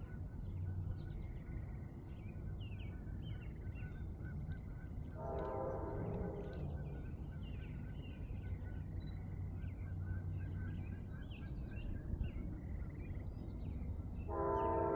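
A diesel locomotive's multi-chime air horn sounds a short blast about five seconds in, then starts another, louder one near the end, over a steady low rumble from the train.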